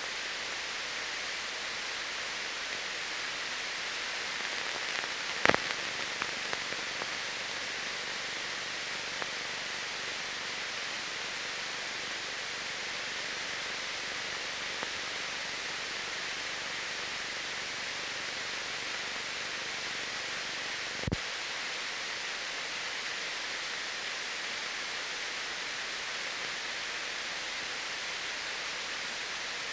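Steady hiss of an old film soundtrack, with a sharp click about five seconds in and another about twenty-one seconds in.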